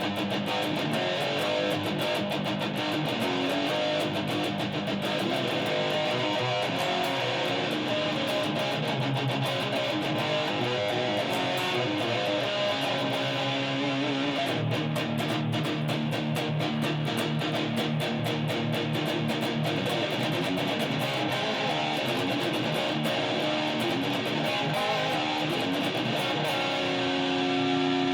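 Guitar playing a heavy metal and prog rock medley: rapid picked riffs, settling into a few held notes near the end.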